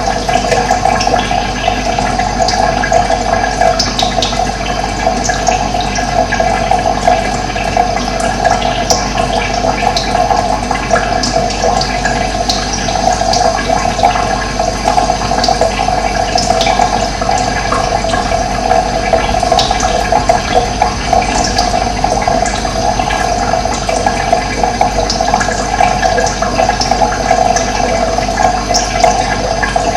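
Running water rushing steadily, with short, high bird chirps scattered over it.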